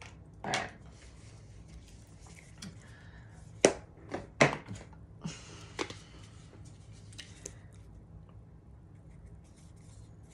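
Makeup products and cases being handled and set down: a handful of sharp clicks and knocks between about three and a half and six seconds in, the loudest two close together, with some rustling.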